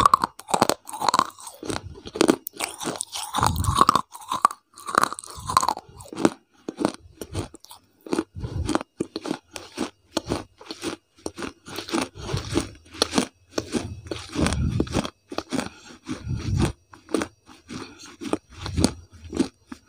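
Crunching and chewing mouth sounds right against a lavalier microphone: quick, irregular clicks and smacks, with a few dull thumps.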